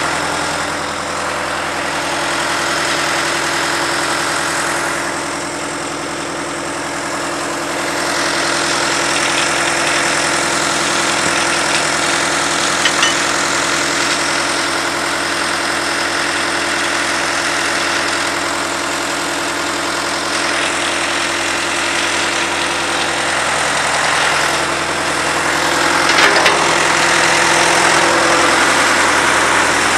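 The engine of a cable-tool drill rig idling steadily, with a couple of brief metallic clicks, one around the middle and one near the end.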